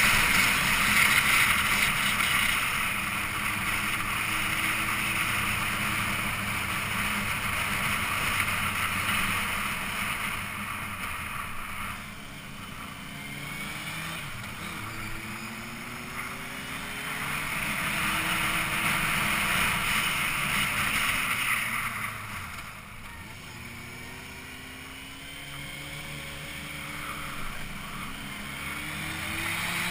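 Motorcycle engine running on the move, its revs rising and falling several times. A rushing wind noise swells louder near the start and again about two-thirds of the way through.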